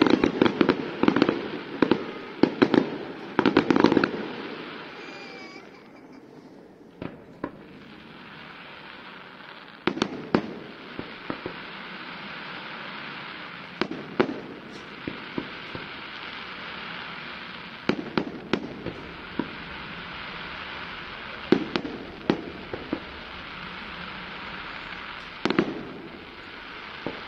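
Fireworks display: a rapid string of bangs for the first four seconds, then a lull. After that come clusters of bangs every few seconds over a steady hiss.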